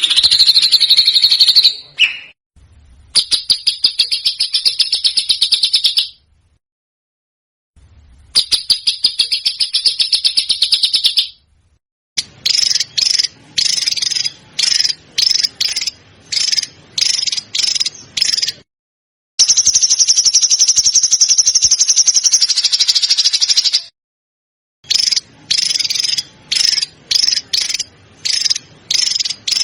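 Recorded songbird calls played as masteran, tutor song for competition songbirds. Rapid rattling trills of fast repeated high notes, some held for several seconds and others broken into short chattering bursts, with abrupt silent gaps between phrases.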